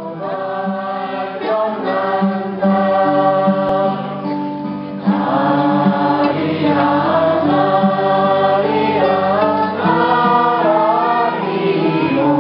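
Live ensemble music: a group of voices singing together in held, wavering notes over cello and guitar accompaniment, swelling in over the first few seconds.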